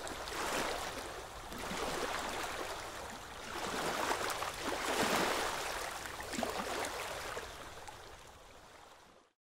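Small waves washing and lapping at the shore of a calm sea, swelling and ebbing every second or two, then fading out near the end.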